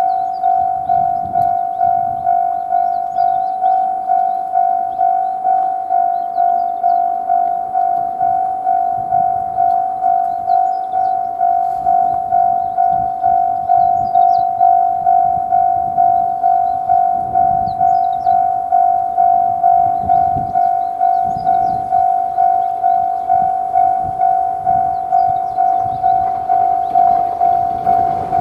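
Japanese railway level-crossing warning alarm ringing its repeated "kan-kan" tone, about two strikes a second, each one fading before the next. It signals that a train is approaching and the barriers are down.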